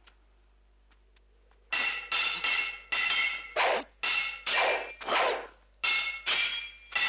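Swords clashing again and again, about a dozen sharp metallic clangs with a ringing tail, starting about two seconds in after a near-silent opening: dubbed sword-fight sound effects of a kung fu film.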